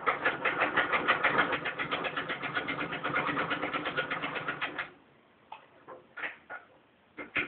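1924 Singer 66 treadle sewing machine running and stitching, an even rapid clatter of needle strokes at about eight a second that stops about five seconds in. A few separate clicks and knocks follow.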